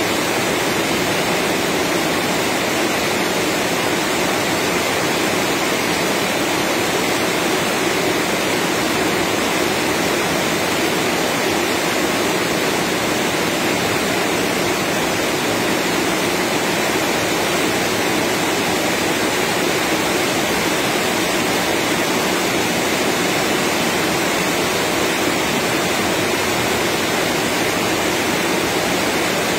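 Steady heavy rain: a continuous, even hiss that neither rises nor falls.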